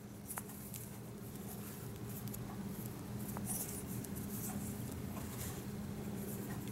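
Quiet handling noise: fingers rustling and scraping against a small lavalier microphone, its plastic parts and cable, with a couple of small clicks, over a steady low hum.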